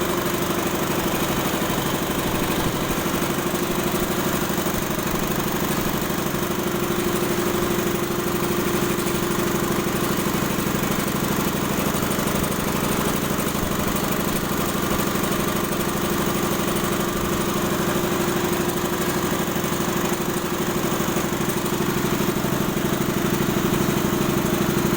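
Air compressor running steadily, a constant mechanical drone with a strong steady hum that does not change in pitch or level.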